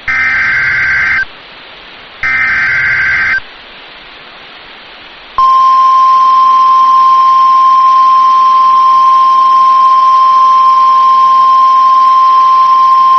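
Emergency Alert System SAME header: two one-second bursts of rapid warbling digital data, a second apart, then about five seconds in the single steady NOAA Weather Radio warning alarm tone starts and holds, announcing a severe thunderstorm watch.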